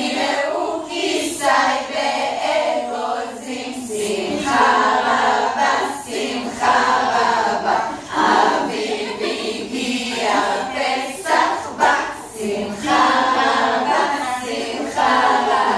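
A group of women singing together in chorus, in short phrases with brief breaks between them.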